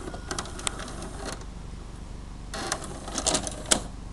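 Clicking and rattling from the tape mechanism of a Toshiba DVR620KU DVD/VCR combo, in two bursts: a short one about a third of a second in and a louder one from about two and a half seconds in.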